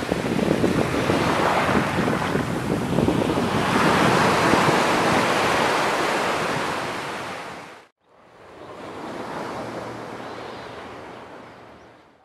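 Ocean surf breaking and washing up a beach, a loud, even rush that swells and ebbs. It cuts off sharply about eight seconds in and comes back softer, fading away near the end.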